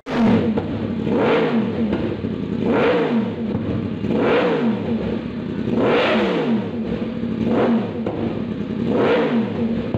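Motorcycle engine breathing through an aftermarket slip-on exhaust silencer, revved in repeated blips while the bike stands still: about six rises in pitch, roughly one every second and a half, each dropping back toward idle.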